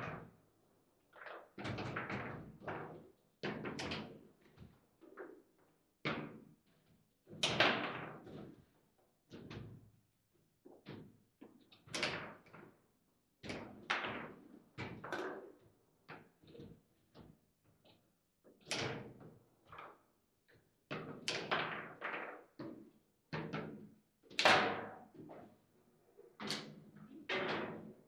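Table football in play: the ball is struck by the plastic figures and rattles against the table's walls, with rods knocking. The hits come as irregular sharp knocks, each ringing briefly, a few of them much louder slams.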